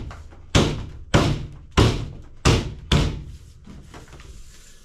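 Polycarbonate snap-joiner cap on twinwall roofing sheets being struck down to seat it fully: five sharp thuds about half a second apart in the first three seconds, then quieter.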